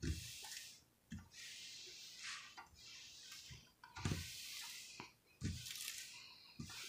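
Hands sliding over the plastic cover film of a diamond painting canvas to smooth it flat: a soft rustling hiss, broken by a few low thumps as the palms press down.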